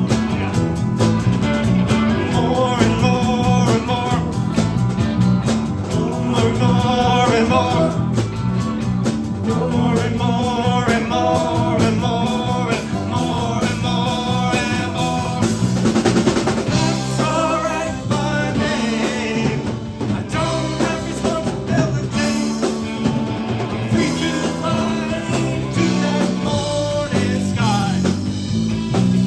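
Rock band playing an instrumental passage: a melodic lead over bass and a drum kit.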